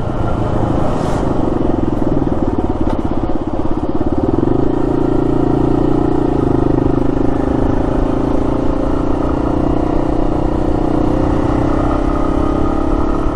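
2008 Yamaha XT250's single-cylinder four-stroke engine under way on the road. The note picks up a little about four seconds in, then holds steady at cruise.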